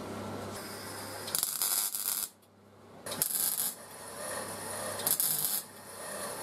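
MIG welder crackling in three short bursts as it joins thin steel flue pipe to the thick steel of a propane bottle. The welding is done in short bursts because the thin pipe blows through easily. A steady low hum sits under the start.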